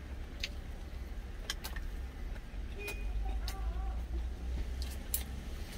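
Steady low hum of an idling truck engine, heard inside the cab, with a few sharp clicks scattered through it.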